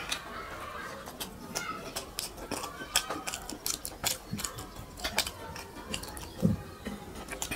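Close-miked wet mouth sounds of chewing rice and curry: sharp smacking clicks several times a second, with fingers squishing and mixing rice on a plate. A short low thump about six and a half seconds in.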